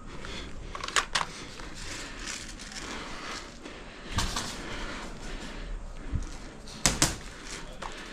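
Three pairs of sharp cracks, about a second, four seconds and seven seconds in, over a steady background hiss.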